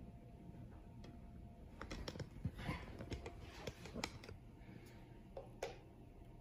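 Scattered light clicks and taps from handling, a dozen or so bunched between about two and six seconds in, over a low steady hum.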